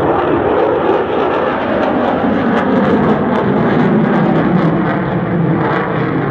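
Jet engine noise from a fighter jet flying overhead: a loud, steady rush that grows heavier in the low end about two seconds in.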